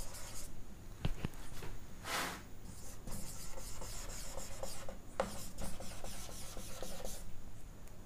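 Marker pen rubbing and squeaking across a whiteboard in many short handwriting strokes, with a few light ticks of the tip against the board.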